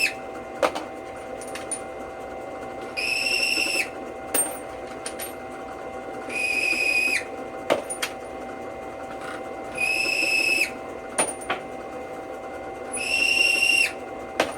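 A small drill press runs with a steady hum while the outside of brass .270 rifle case mouths is chamfered on the spinning deburring/chamfering tool. Each case pressed to the cutter gives a short, high squeal, about five times at a steady pace a few seconds apart, with sharp clicks between as the cases are handled.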